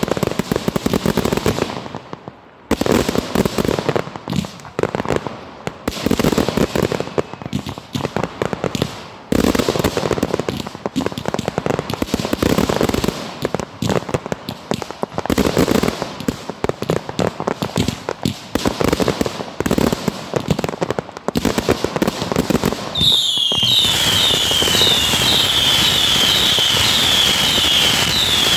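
Fireworks display: waves of dense crackling bursts from aerial shells. About 23 seconds in, this gives way to a steady hiss with a run of short falling whistles, about two a second.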